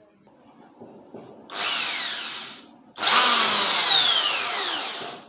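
Electric drilling machine's brushed AC motor test-run in two short bursts, a brief one and then a longer one. Each starts suddenly, and its whine falls in pitch as it dies away. The drill is running again after its loose carbon-brush connections were reconnected.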